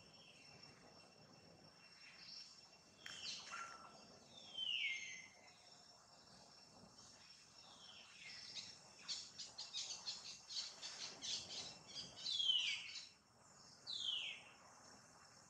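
Birds calling: a few clear high calls that slide down in pitch, and a fast run of short sharp notes in the middle. A faint, steady, high insect whine runs underneath.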